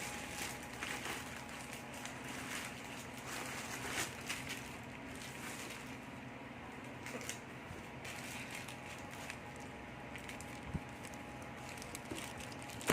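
Gift packaging being handled: faint rustling with scattered light clicks and taps over a steady low background hum.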